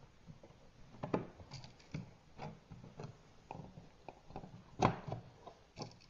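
Faint, scattered clicks and scrapes of support brackets being slid in beside an old-work electrical box and pushed into place in the drywall opening, with a sharper click near the end.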